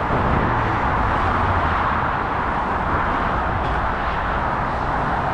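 Motorway traffic passing below in a steady, continuous rush of tyres and engines, with no single vehicle standing out.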